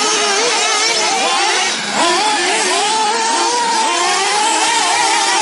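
Several nitro RC off-road cars' small engines buzzing and revving together, each pitch rising and falling as the cars accelerate and brake round the track. The sound dips briefly just before two seconds in.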